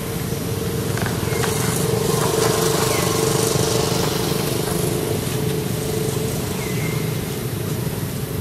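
Engine noise from a motor vehicle running steadily, growing louder over the first couple of seconds and then slowly fading.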